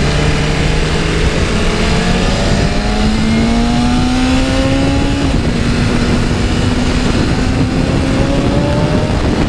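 2024 BMW S1000RR's inline-four engine accelerating hard under the rider, its pitch climbing, dropping sharply at a quick upshift about five seconds in, then climbing again.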